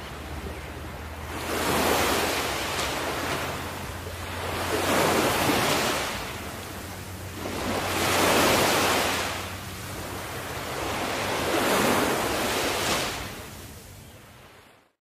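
Ocean waves washing in and drawing back: four slow swells about three to four seconds apart, with a steady low hum beneath. The sound fades out near the end.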